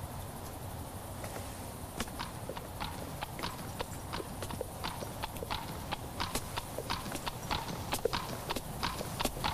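Horse's hooves clip-clopping on a hard floor as it is led at a walk. The steps start about a second in and grow stronger and closer together as the horse comes nearer.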